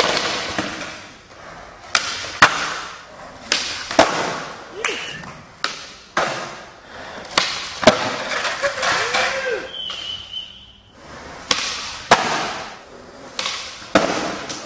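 Skateboard doing flatground tricks on smooth concrete: wheels rolling, with about a dozen sharp pops of the tail and clacks of the board landing, echoing in a large hall.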